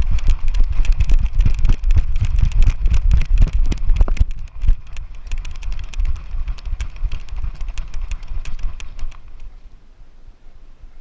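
Rapid, irregular knocks and clicks over a heavy low rumble, typical of an action camera being jostled and bumped during running play. It dies away about nine and a half seconds in.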